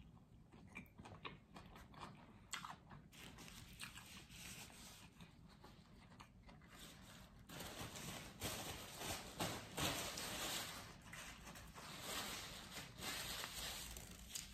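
Faint chewing of a soft sandwich bite, then from about halfway a paper napkin rustling and crinkling as it is handled.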